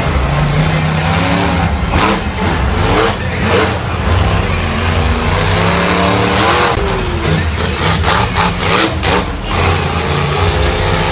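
Monster truck engine running loud, revving up and down as the truck drives.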